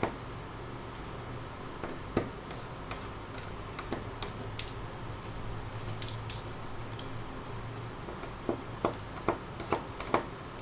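Irregular small clicks and ticks of a size 000 Phillips screwdriver working tiny screws out of a smartphone's back frame, over a low steady hum.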